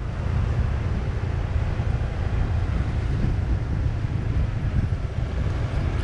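Steady wind rumble buffeting the microphone on a moving motorbike, with the noise of the ride underneath.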